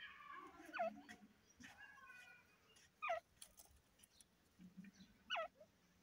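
Francolin calls: a drawn-out, slightly falling call at the start, then three short downward-sweeping calls about two and a half seconds apart, with soft low clucks between.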